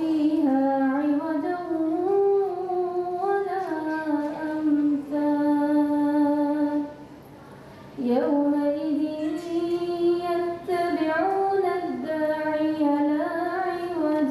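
A woman's solo Quran recitation (tilawat), chanted in a melodic style with long held and ornamented notes. It comes in two long phrases, with a pause of about a second near the middle.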